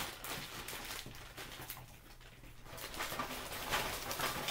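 Crinkling of a large plastic bag of frozen broccoli florets as they are tipped out and spill into aluminium foil pans: an irregular rustle with small clicks that eases off briefly midway and picks up again.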